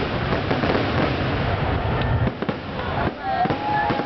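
Aerial fireworks going off in a rapid barrage: a dense, continuous crackle of overlapping shell bursts that thins out about two seconds in. Near the end, a crowd starts to cheer and whistle.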